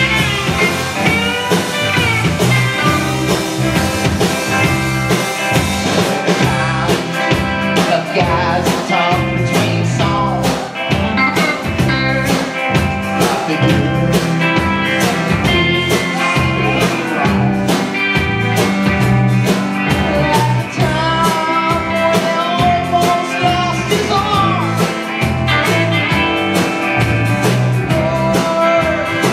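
Country-rock band playing live: electric guitars and a drum kit, loud and steady, with a regular beat.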